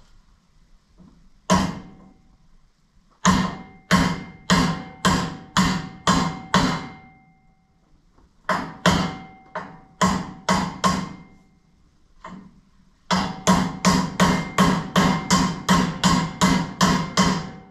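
Steel hammer tapping a universal-joint bearing cap into a driveshaft yoke: sharp metal-on-metal blows with a brief ring after each. A single blow comes first, then runs of steady taps at about two a second, and a faster run of about three a second near the end.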